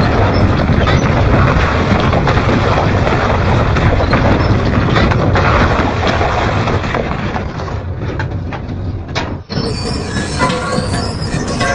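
Double-shaft industrial metal shredder grinding scrap metal: loud, continuous crunching and cracking of tearing metal. After a short break about nine and a half seconds in, high metal squealing joins the grinding.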